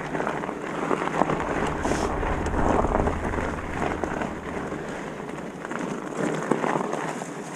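Mountain bike rolling over a rough trail: tyre noise with many small rattles and clicks, and wind on the microphone. The low rumble drops away near the end.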